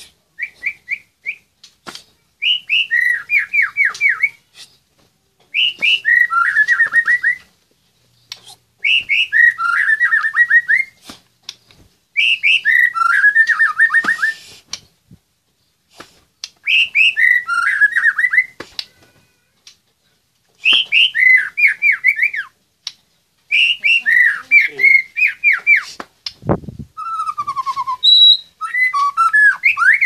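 White-rumped shama (murai batu) singing loudly in its cage: about eight song phrases a few seconds apart, each a couple of seconds of clear whistled notes that drop into a fast trill. A single low thump comes about three-quarters of the way through, just before a slower falling whistle.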